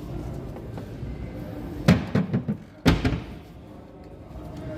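Two slams about a second apart, the first followed by a short rattle of smaller knocks: cabinet or cupboard doors being shut.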